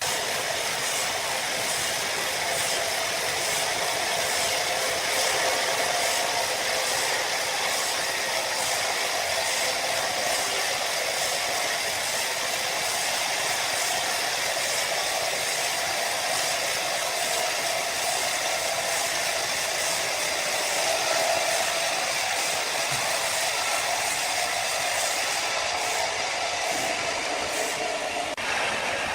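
Sawmill machinery running: a loud, steady mechanical noise that holds at an even level throughout.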